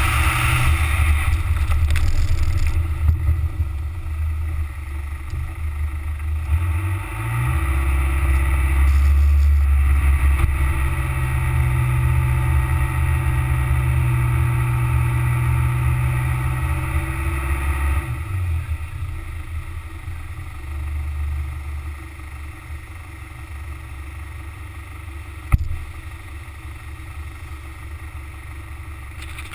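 Car driving on beach sand, heard from a camera mounted low on the car's side: steady engine rumble and tyre and wind noise. The engine note swells about seven seconds in and drops back after about eighteen seconds, and there is a single sharp knock near the end.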